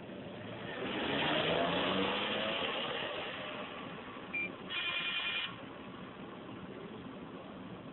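A vehicle passing in traffic, swelling and fading over about two seconds, then a short high beep and a brief electronic ringing tone of under a second.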